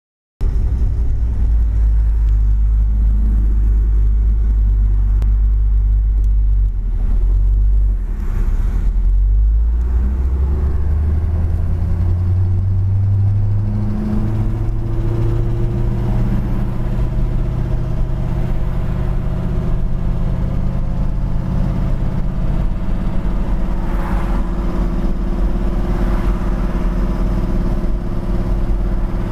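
Car engine running with a loud, low rumble, heard from inside the car as it drives. The engine note climbs steadily as the car speeds up, after a brief dip about eight seconds in, then holds steady.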